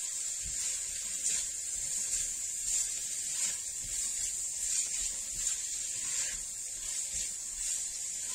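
Onions sizzling as they fry in a cast-iron casserole: a steady high hiss with small crackles, and faint scraping and knocks from stirring.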